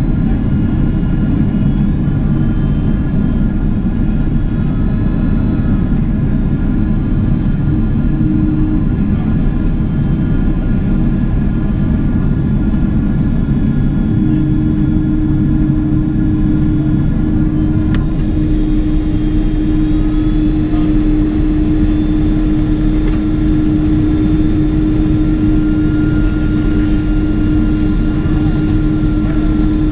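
Boeing 767-400ER jet airliner heard from inside the cabin: a loud, steady rush of air and engine drone with several steady humming tones. About halfway through, a low hum fades and a higher steady hum comes in, and a single sharp click sounds shortly after.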